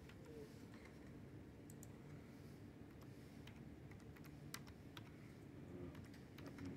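Faint, irregular keystrokes on a computer keyboard as a short name is typed, over a steady low room hum.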